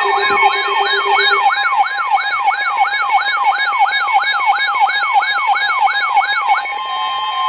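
Electronic emergency-alert siren in a fast yelp, sweeping up and down about three times a second over steady alert tones. The siren stops about six and a half seconds in, and the steady tones hold on.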